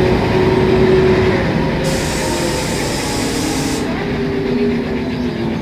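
Mercedes-Benz O500MA articulated bus's diesel engine running under way, its pitch drifting down a little. Partway through there is a hiss of compressed air from the bus's air system, which starts and stops sharply and lasts about two seconds.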